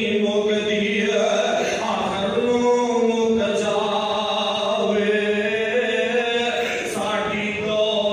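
A male preacher chanting a melodic recitation in long, drawn-out held notes, with short breaks between phrases.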